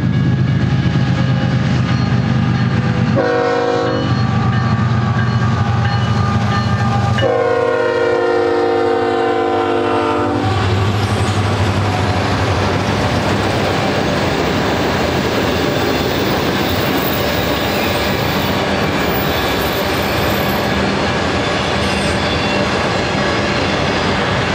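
Union Pacific diesel locomotives passing with a low engine drone, sounding the air horn in a short blast and then a longer blast of about three seconds. After about ten seconds the horn and engine give way to auto-rack freight cars rolling by, with a steady rumble and wheel clatter.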